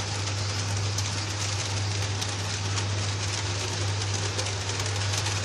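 Model railway goods train running along the track: a steady rolling rattle of wheels on rails, over a constant low hum.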